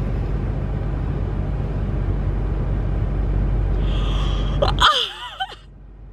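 Steady low rumble inside a parked car with its engine running. About four seconds in, a woman lets out a high-pitched excited gasp and squeal that swoops up and down in pitch, and the rumble cuts off suddenly near the end.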